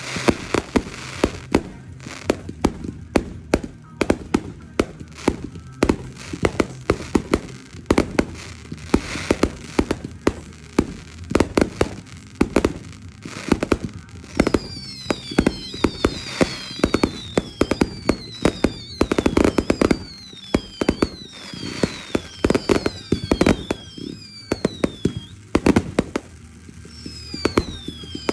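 Fireworks going off: a rapid, irregular string of sharp bangs and cracks, joined from about halfway through by repeated whistles that each fall in pitch.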